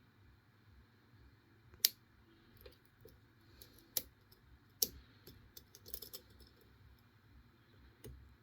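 Faint, sparse clicks and light scrapes of a lock pick and tension tool working the pin stack in the keyway of an all-brass five-pin padlock, with sharper single clicks about two, four and five seconds in and a short run of small clicks around six seconds. The pick is searching for the last unset pin.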